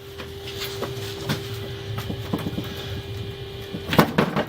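Knocks and clatter of metal as a removed GAZelle manual gearbox is handled and tipped onto its side. A cluster of loud clanks comes about four seconds in, over a steady low hum.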